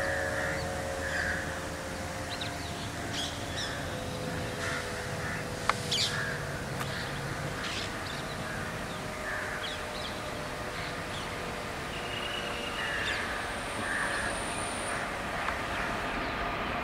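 Crows cawing again and again over the steady low hum of a slowly approaching WAP-4 electric locomotive, with one sharp click a little before the middle.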